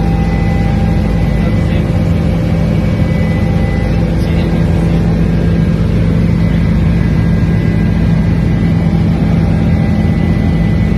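Helicopter engine and rotor noise heard inside the cabin in flight: a loud, steady drone with a strong low hum and a faint high whine, unchanging throughout.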